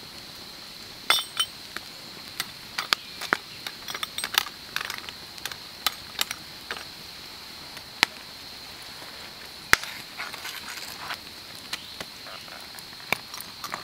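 Wood campfire crackling, with sharp, irregular pops and clicks scattered throughout, over a steady high-pitched insect drone.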